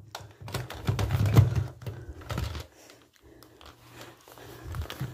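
Plastic baby dolls being picked up out of a bathroom sink and carried: a run of light clicks, knocks and rustling, busiest in the first half, over low handling rumble.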